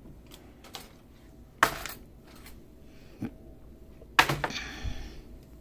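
Crochet hooks clinking and clattering as they are rummaged through in search of one size: a few light clicks, a sharp clack about a second and a half in, and a louder clack about four seconds in with a brief ringing after it.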